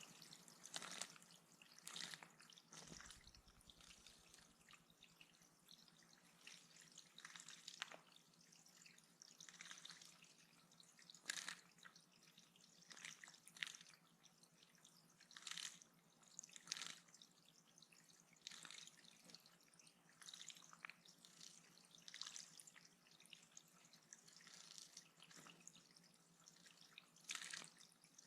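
Water dripping and trickling at a bird pond: a faint steady trickle with short, irregular drips every second or two.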